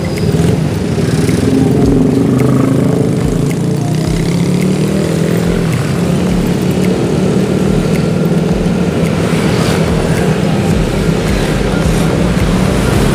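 Engine of the road vehicle being ridden, running continuously at travelling speed with road and wind noise; its pitch shifts a little in the first few seconds, then holds steady.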